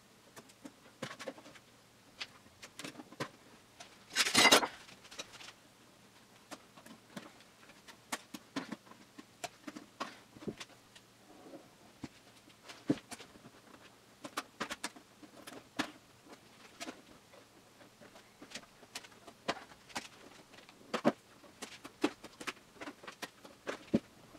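Scattered light clicks and taps of a wooden octave mandolin body and thin ebony binding strips being handled and pressed along the body's edge by hand, with one louder scrape of about half a second a little after four seconds in.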